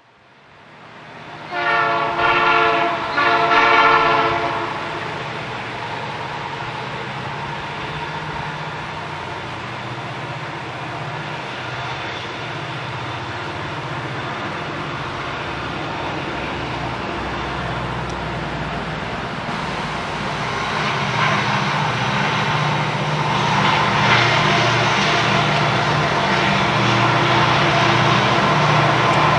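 Nathan P3 horn on Union Pacific EMD SD70M locomotives sounding for about three seconds, swelling twice. The locomotives' 16-710-G3B two-stroke diesel engines roar steadily beneath, growing louder from about twenty seconds in as the train draws nearer.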